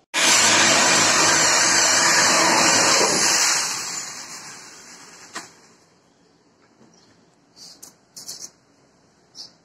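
Bench-mounted circular saw running and cutting a plywood sheet, starting abruptly, then cutting off after about three and a half seconds and winding down over the next two seconds or so. A few light knocks follow near the end.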